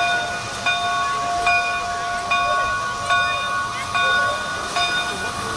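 Steam locomotive bell on Canadian Pacific 2816 ringing steadily, about one stroke every 0.8 seconds, each stroke leaving a ringing tone that fades until the next one. A faint hiss runs underneath.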